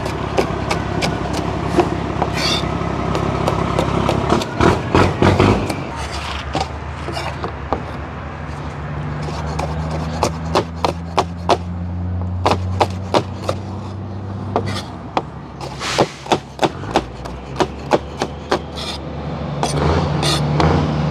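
Knife chopping vegetables on a cutting board in runs of quick strokes. A low engine hum sounds in the background partway through and again near the end.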